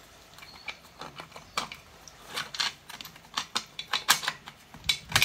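Irregular light clicks and taps of a number plate being handled and pressed against a chrome side-mount bracket, fitted over its mounting screws.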